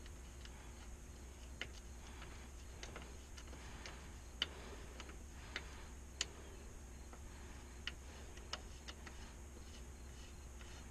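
Scattered faint clicks and taps of hand tools and metal parts being worked during a Kawasaki KDX200 engine teardown, irregularly spaced, the loudest about four and a half and six seconds in, over a steady low hum.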